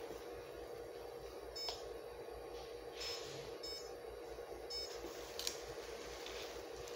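Ultrasound machine giving about four short, faint electronic beeps, a second or so apart, over a steady low hum, with a single click near the end.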